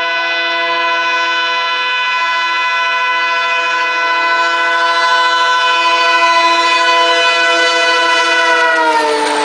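ALCO WDG-3A diesel locomotive's horn held in one long continuous blast, a chord of several notes, getting slightly louder. About nine seconds in, the whole chord drops in pitch as the locomotive passes, and train noise rises under it.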